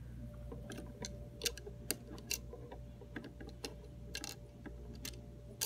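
Light clicks and taps of plastic Lego pieces being handled and pressed into place on a wooden tabletop, coming singly at irregular intervals.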